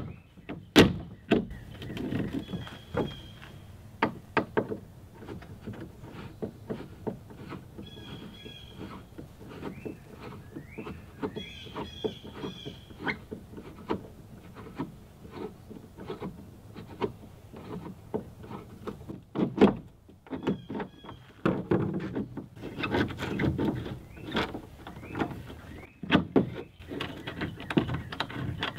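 Irregular clicks, knocks and scrapes of hand tools and bolt hardware as a wooden canoe thwart is unbolted and worked loose from the gunwales.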